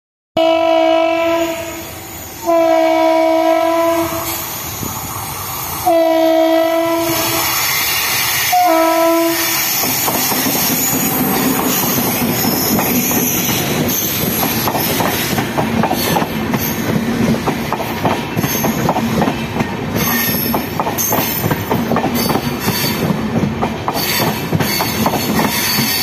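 WAP7 electric locomotive's horn honking in four blasts, the last one short, as the train approaches. Then the double-decker express passes close by, its wheels rumbling and clattering over the rail joints for the rest of the time.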